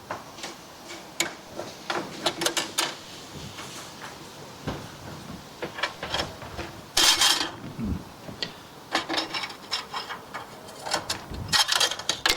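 Scattered metal clicks, knocks and scrapes as the parts of a bench-top horizontal band saw are handled during a blade change, with a louder, longer rattling scrape about seven seconds in.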